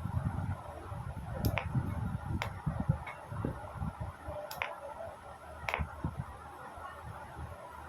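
Philips 236 Philigrand two-band valve radio's speaker giving out a steady hiss with uneven low crackling and four sharp clicks, the faulty sound the set has.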